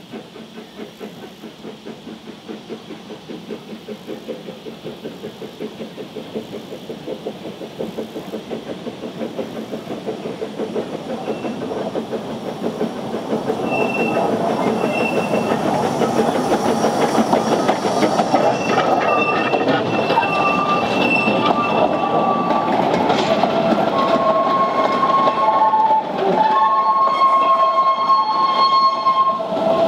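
Narrow-gauge 4-4-0T steam tank locomotive working a train past at close range, its even exhaust beats growing louder as it approaches, then the rumble and clatter of the coach and wagons rolling by. From about halfway on, high squeals at several pitches come and go from the wheels on the curve.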